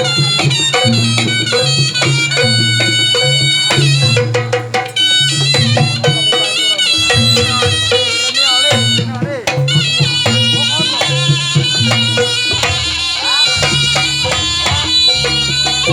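Traditional Javanese jaranan/barongan music: a shrill, reedy shawm (slompret) plays a held, winding melody over steady drum and gong strokes.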